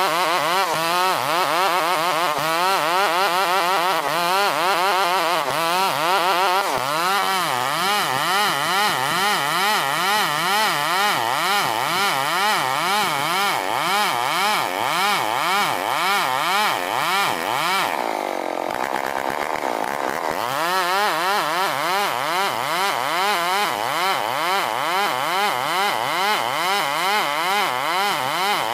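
A STIHL 070, a large two-stroke chainsaw, runs under load ripping a dense ulin ironwood log lengthwise. Its engine note rises and falls rhythmically as the saw works in the cut. About two-thirds of the way through it sags briefly, then picks back up.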